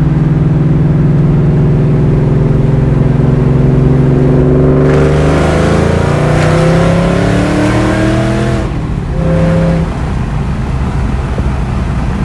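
2004 Mustang SVT Cobra's supercharged 4.6-litre V8 running steadily, then accelerating hard in third gear. Its note rises for about three and a half seconds with a rush of intake and wind noise, then drops off suddenly as the throttle is lifted and settles into a quieter run.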